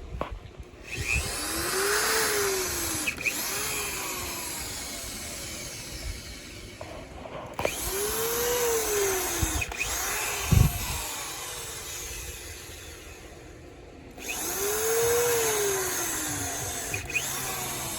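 Electric drill powered from a portable power station, working into wood to fit a hinge. It runs in three long spells, its motor whine rising and falling in pitch within each, and there is a sharp knock about ten seconds in.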